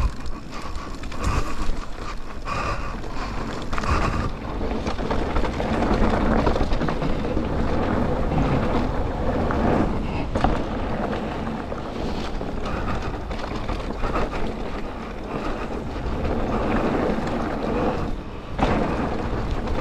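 Mountain bike being ridden over a rough dirt trail: steady wind noise on the microphone, with tyre rumble and the bike's frequent knocks and rattles over the bumps.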